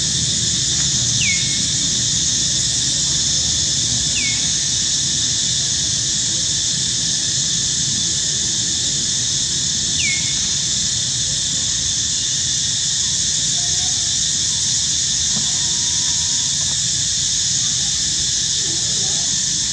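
Steady high-pitched insect chorus over a low background rumble, with three short, high chirps that fall in pitch in the first half.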